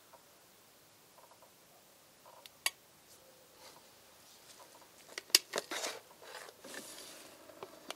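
Hard plastic of a small electric kettle clicking and knocking as it is handled and lifted off its base. There is one sharp click a few seconds in, then a quick cluster of clicks and knocks about five seconds in, followed by a brief scrape.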